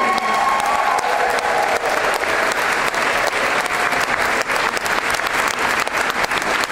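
A crowd applauding steadily, with a few cheers or whoops over the clapping that die away in the first second or so.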